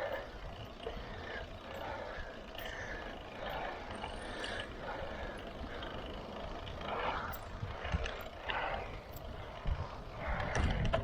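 Wind rumbling on a bicycle-mounted camera's microphone while riding, with road traffic noise and scattered faint mid-pitched sounds; a few brief louder knocks come near the end.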